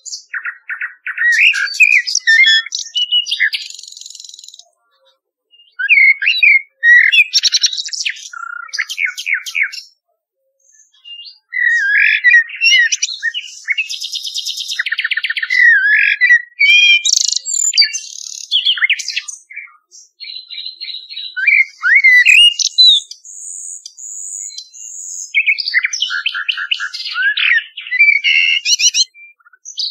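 Recorded birdsong of a common nightingale and a common blackbird: varied phrases of clear whistles, quick trills and fast runs of repeated notes, each phrase a few seconds long and separated by short silent pauses.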